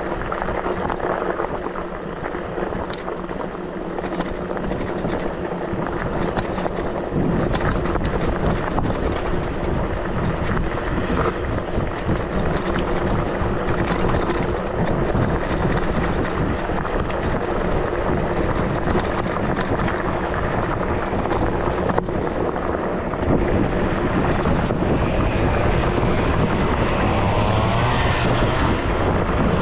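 Wind buffeting the microphone and tyres rumbling over rough ground as an ENGWE X24 electric bike rides offroad. The rumble grows heavier about seven seconds in, a steady hum runs underneath, and a few short rising whines come near the end.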